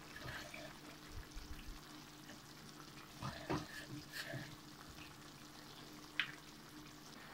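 Faint sizzling of minced pork with onion and carrot frying in oil over low heat, with a few soft knocks in the middle and a short click about six seconds in.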